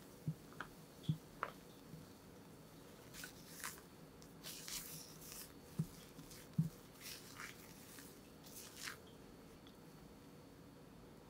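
Silicone spatula folding cocoa and flour into whipped egg batter in a glass bowl: soft wet squishing and scraping strokes, with a few light knocks against the bowl.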